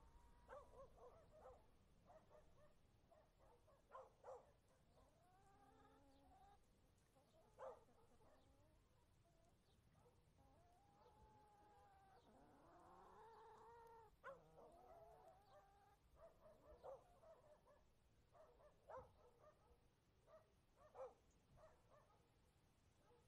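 Faint animal calls: a scatter of short pitched cries, with one longer drawn-out cry that rises and falls a little past halfway.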